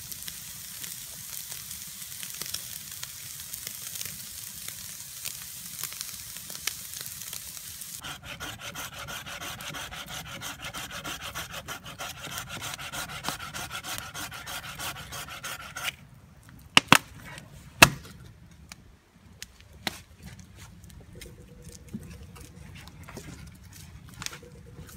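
Lamb steaks sizzling on a wire grill over the embers of a wood fire. About eight seconds in it changes to a steady rough rasping of a blade working through a green log. In the quieter last part, two sharp cracks come close together.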